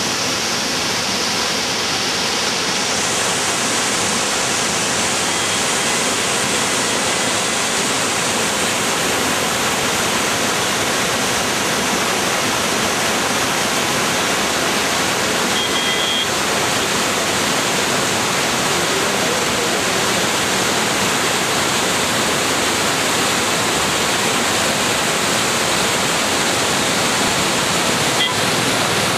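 Waterfall cascading over rocks: a steady, unbroken rush of falling white water.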